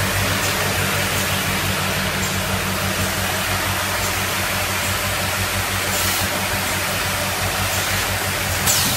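Automatic cap assembly machine running steadily: a constant low hum under an even mechanical rush of noise, with faint clicks and a brief clatter near the end.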